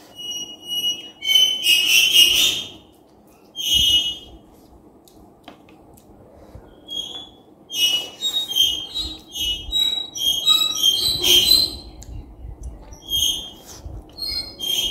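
A person slurping spicy instant noodles and sucking air in through the lips, heard as a run of short, high, squeaky whistles in bursts, with a quieter pause in the middle; the sucked-in air is a reaction to the chilli heat.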